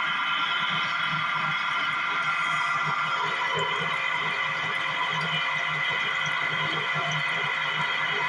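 Coconut oil expeller press running steadily while pressing, a constant whine with a low throb pulsing several times a second.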